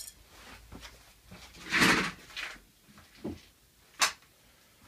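Rummaging through workshop storage while searching for a sharpening stone: a rustling scrape of things being moved about two seconds in, then a soft knock and a sharp click.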